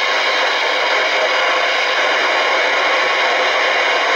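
A Shogun CB radio's speaker hissing with steady static, with no voice coming through: the calling station has faded out into the band noise.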